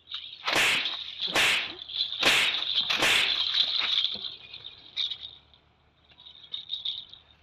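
Four quick swishes of a broom swung hard through the air, about a second apart, over steady insect chirring.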